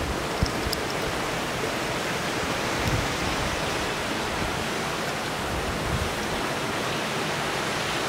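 Waterfall and creek water rushing steadily through a rock gorge, an even hiss with no breaks.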